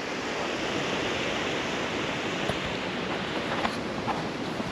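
Creek running high in flood, a steady rushing of fast-flowing water, with a few faint ticks in the second half.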